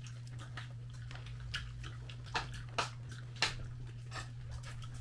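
People eating Korean fried chicken: irregular crisp bites and crunches with chewing, a few sharper cracks in the middle. A steady low hum runs underneath.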